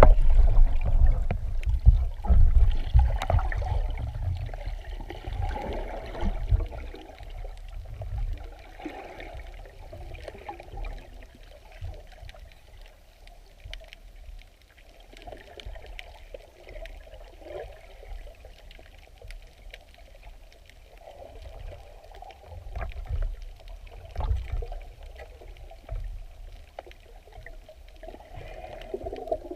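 Muffled water sound heard underwater: a low rumble of water movement with faint scattered clicks, louder in the first few seconds and again near the end.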